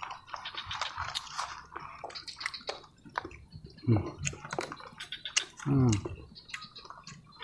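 People chewing mouthfuls of grilled snail meat pulled off satay skewers, with many quick wet clicks and lip-smacks. Two short hummed voice sounds come in the middle, the second a little longer.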